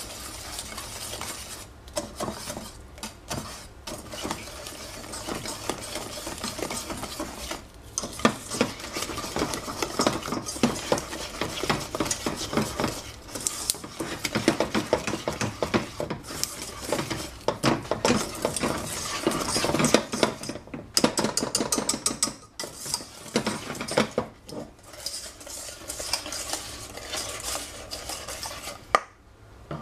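Wire balloon whisk beating chocolate cake batter in a stainless steel saucepan, its wires scraping and clicking against the pan in fast strokes. The whisking pauses briefly near the end.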